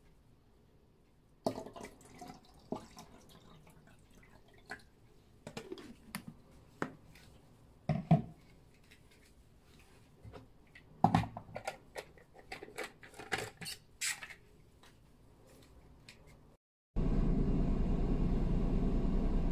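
Scattered clinks and knocks of dishes and utensils being handled, some sharp and some duller. Background music comes in near the end.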